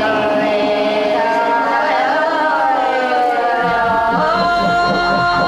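Background music of long, sustained tones that glide slowly in pitch, with a low pulsing coming in about two thirds of the way through.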